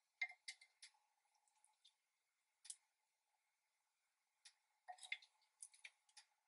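Wooden spoon tapping and scraping against glass dishes: a quick run of light clicks just after the start, a single click near the three-second mark, and a denser run of clicks around five to six seconds, over a faint steady hum.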